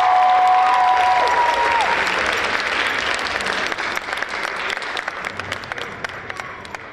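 Audience applause, dense at first and then thinning out and fading until single claps stand out near the end. A couple of held high notes, from voices or the last of the music, sound over it in the first two seconds.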